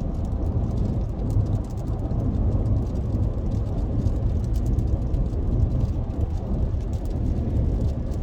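Steady low rumble of a car driving, heard from inside its cabin, with faint scattered ticks above it.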